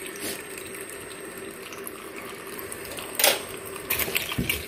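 Tap water running steadily into a stainless steel stockpot full of chopped vegetables. A little over three seconds in comes a sharp metal clank, then a metal ladle clatters against the pot and vegetables.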